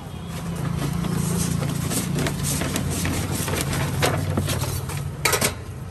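Vinyl sticker sheet crackling and rustling as it is handled and pulled off a vinyl cutting plotter, with a louder crackle about five seconds in. A steady low hum runs underneath.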